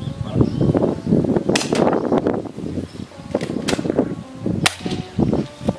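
Airsoft guns firing single shots: about four sharp snaps at uneven intervals.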